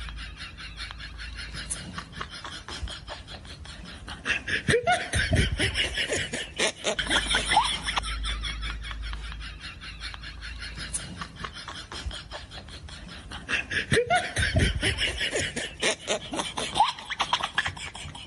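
A person making non-speech vocal noises as zombie sound effects, with short rising squeals and clicks. They come in two louder spells, about five seconds in and again near the end.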